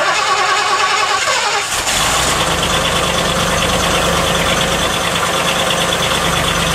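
Old Ford pickup's carbureted V8 on a cold start: the starter cranks for about two seconds, then the engine catches and settles into a steady idle.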